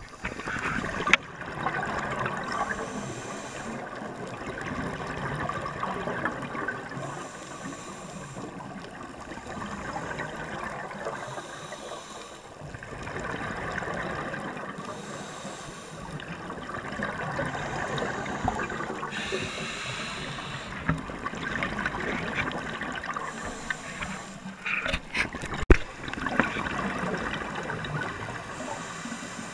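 Scuba regulator breathing heard underwater: a hiss on each inhale alternating with a bubbling rush on each exhale, in cycles of about four seconds, with a few sharp clicks a little before the end.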